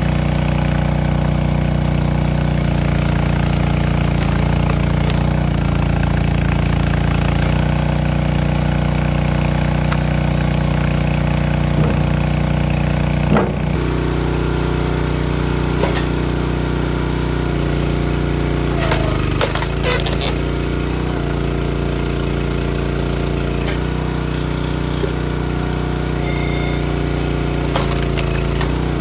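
A small loader's engine running steadily, with occasional knocks and clatters of wood, the clearest a little past halfway and again about two-thirds of the way through.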